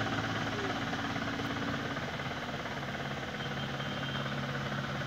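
A motor vehicle engine idling with a steady low hum; its note changes about two seconds in.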